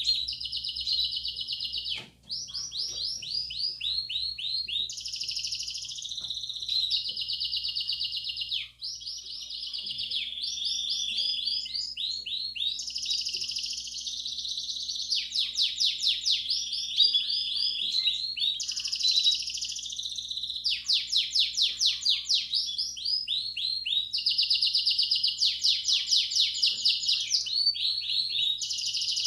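Belgian canary singing its 'campainha' (bell) song: an unbroken string of fast trills and rolls that switch to a new phrase every second or two, with brief breaks about two and nine seconds in.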